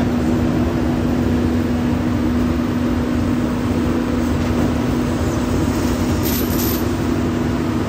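Komatsu PC200 hydraulic crawler excavator's diesel engine running steadily, a constant, even hum with no revving.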